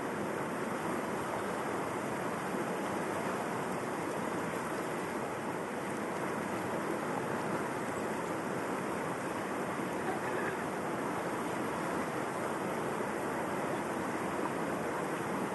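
Steady rushing of flowing river water, an even wash of noise.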